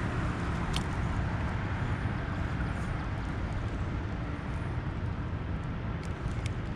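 Steady low rumble and hiss of wind buffeting the camera microphone, with a faint tick about a second in and two more near the end.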